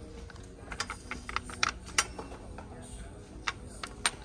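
Irregular light clicks and taps of glass and plastic cosmetic bottles being handled on a shelf: a cluster in the first half, the sharpest about two seconds in, and a few more near the end.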